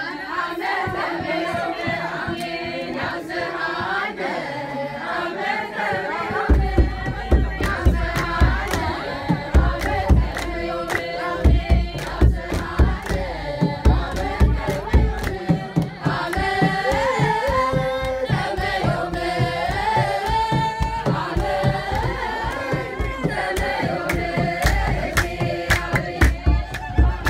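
A group of women singing an Ethiopian Orthodox hymn (mezmur) together with hand clapping. About six seconds in, a kebero drum joins with a steady, driving beat under the singing.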